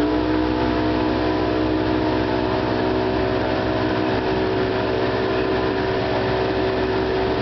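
Mercury outboard motor running steadily under way, with the rush of water from the boat's wake.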